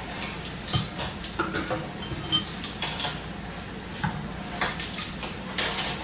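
A spoon scraping and clinking against a cooking pot in irregular strokes as cooked rice is stirred into a bean stew.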